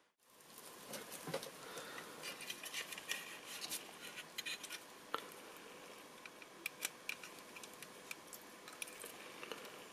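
Small plastic parts of a scale model car body being handled and fitted by hand: irregular light clicks, taps and rubbing of plastic on plastic.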